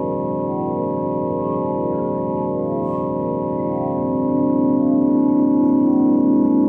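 A steady organ-like drone of many held tones sounding together, with a slow pulsing in the middle notes; it swells louder about four seconds in. It is presented as the sound of Jupiter's moon Amalthea.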